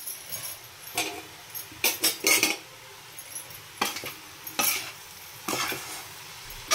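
Flat metal spatula stirring grated carrot in an iron kadai: about seven uneven scrapes of metal on the pan, over a faint sizzle of the frying carrot.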